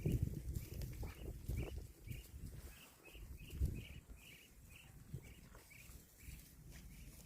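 A small bird chirping in a steady series of short high notes, about three a second, fading out near the end. Low thumps and rumble sit underneath, loudest in the first two seconds.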